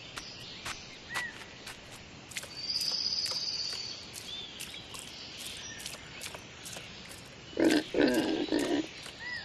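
Cartoon sound effects: a steady run of light clicks with a few short chirps, and a high shimmering tone about two and a half seconds in. Near the end come two loud animal grunts, close together.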